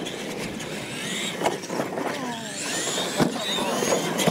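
Electric radio-controlled monster trucks racing on a dirt track: motor and gear whines rising and falling as the drivers throttle on and off, with a few sharp knocks as the trucks hit and land off the jumps.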